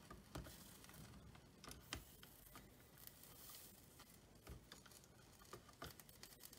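Near silence, with a handful of faint, scattered light clicks and taps as a soldering iron is worked along a lead seam, letting the solder flow in.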